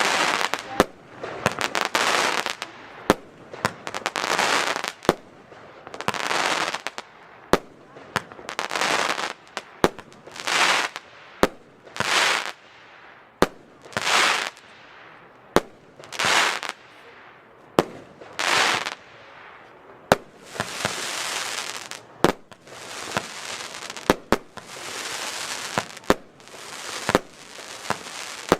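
Weco Witches F2 fireworks battery firing shot after shot: a sharp bang every second or so, each followed by a hissing burst lasting about a second. From about two-thirds of the way in, the hissing effects become longer and run together.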